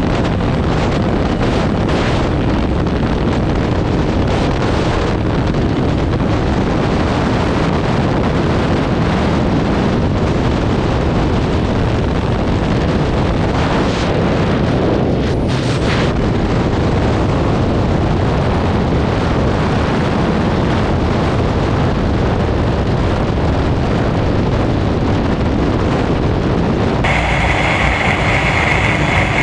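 Wind rushing hard over a motorcycle-mounted camera's microphone at highway speed, with the engine running under it. Near the end the sound turns steadier, with a thin high tone over the engine.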